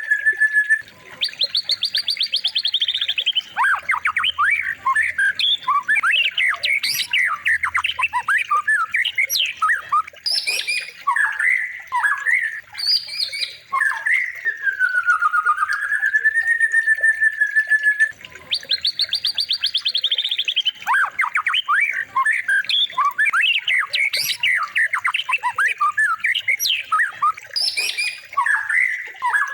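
Recorded songbird song used as a masteran for white-rumped shamas. It is a dense jumble of sharp chirps and whistles with a fast high trill and a long wavering whistle, and the sequence repeats about every 18 seconds as a loop.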